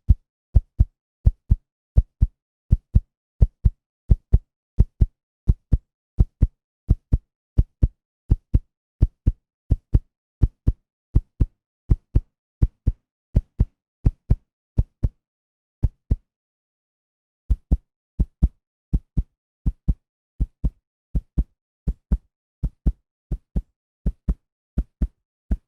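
Heartbeat sound effect: low double thumps (lub-dub) beating steadily at about 85 beats a minute, with one missed beat of about a second and a half about two-thirds of the way through.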